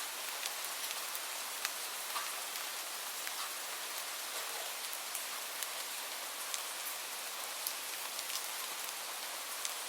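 Light rain falling steadily: an even hiss with separate drops ticking now and then on a hard surface.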